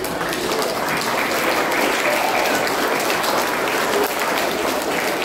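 Audience applauding, a dense patter of many hands that swells about a second in and then holds steady.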